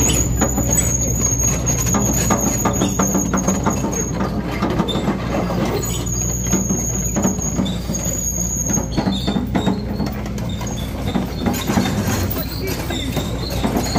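A heavy truck's engine running with a steady low hum, many rattles and clicks, and a high thin squeal that comes and goes, stopping about four seconds in and returning briefly a couple of seconds later.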